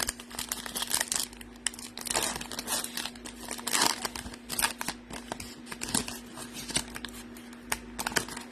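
Foil wrapper of a Topps Chrome trading-card pack crinkling and tearing as it is ripped open and handled, in irregular crackles and rustles.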